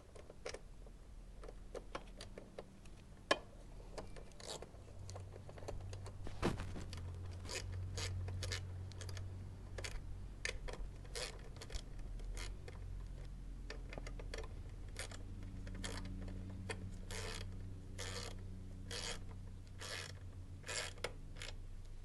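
Irregular sharp metal clicks and light scrapes of a hand tool tightening down the bolts of a motorcycle headlight bracket. The clicks come faster and stronger in the second half, over a low steady hum that starts about five seconds in.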